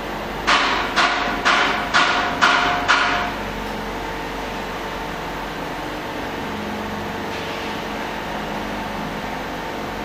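Six short electronic beeps about half a second apart from a flex cable hot-press bonding machine, over the steady hum of the machine running.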